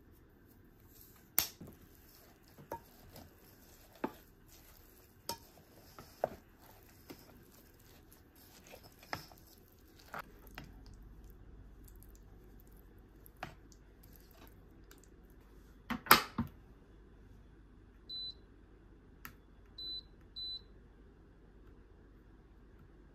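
Scattered taps and clinks of utensils and a wooden spatula against an electric rice cooker's inner pot, then a loud double knock as the lid is shut about two-thirds of the way in. Three short beeps follow from the cooker's touch panel as it is set to cook.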